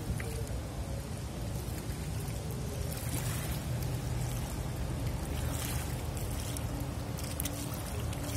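Low steady engine drone of a passing river cruise ship, with small waves lapping and trickling over the pebble shore in soft swishes every couple of seconds.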